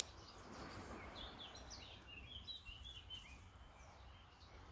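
Faint bird chirping: a quick run of short high notes in the middle, over low background noise. A brief click right at the start.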